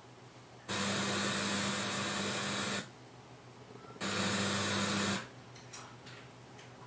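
Radio loudspeaker giving out hiss and static, with a hum underneath, in two bursts: one of about two seconds, then a shorter one of about a second. This fits a radio being switched between stations.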